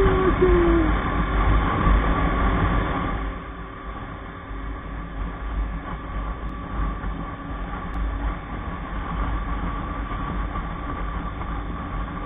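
Motorcycle ridden at highway speed: wind and road rumble on the rider's microphone over the steady hum of the KTM RC 200's single-cylinder engine, louder for the first three seconds and then lower and even. A short falling tone sounds in the first second.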